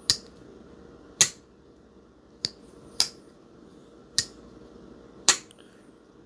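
QSP Hedgehog slip-joint pocket knife's blade being opened and closed repeatedly, each time snapping sharply into place against its strong backspring. There are six crisp snaps, roughly a second apart.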